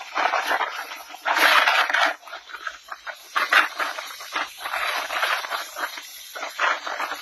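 Storm wind gusting: a rushing noise that swells and drops every second or so, loudest about a second and a half in.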